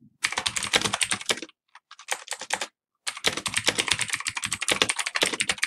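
Fast typing on a clicky computer keyboard: a quick run of keystrokes, a short gap with a few scattered strokes, then a second longer run.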